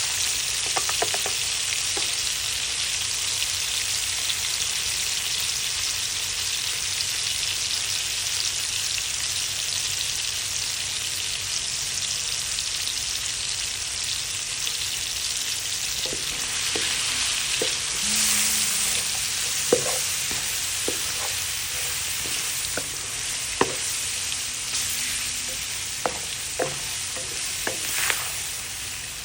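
Seasonings and aromatics sizzling steadily in the oil left in the pan after frying the fish. From about halfway through come scattered light clicks and knocks as the pan is stirred.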